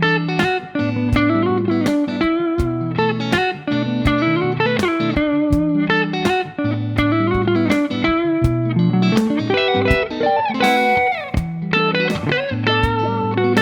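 D'Angelico Deluxe Atlantic electric guitar played in a neo-soul style: plucked chords and quick melodic fills, with some notes sliding in pitch.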